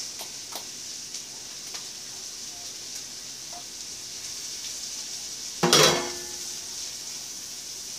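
Onions and fresh mushrooms sizzling in a frying pan as they are stirred with a spatula, with a steady hiss and a few small clicks. About six seconds in, a brief, louder clatter of utensil against the pan.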